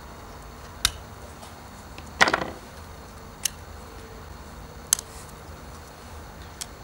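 Small metal clicks and taps as a vintage petrol lighter's steel case is worked with needle-nose pliers at its hinge and handled: about five sharp clicks, the loudest a short rattle about two seconds in.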